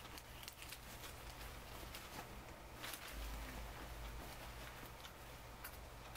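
Faint rustling and scraping of a quilted moving blanket being handled as foam darts are worked out of it, with scattered soft clicks and a low thump about three seconds in.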